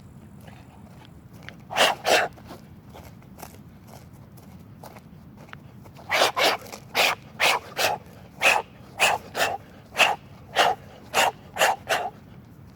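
Sharp, forceful exhalations of a man shadow boxing, one huff with each punch: a pair about two seconds in, then after a pause a fast run of about sixteen, roughly two a second, often in quick pairs like punch combinations.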